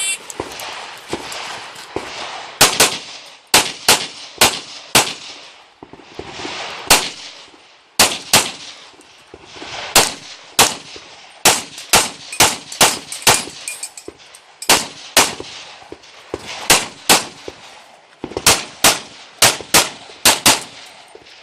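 Pistol shots fired in quick strings during an action pistol stage: some thirty-odd rapid shots, with brief pauses between strings.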